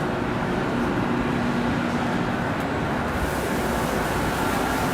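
Steady machine-shop din from machining equipment running on a production floor: a dense, even noise with faint steady hums through it, loud enough to talk over.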